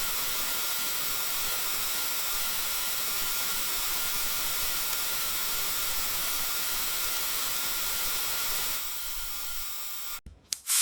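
Dental chair reclining, giving a steady airy hiss with a faint whine in it. It eases off about nine seconds in, cuts out briefly, and louder hissing starts again near the end.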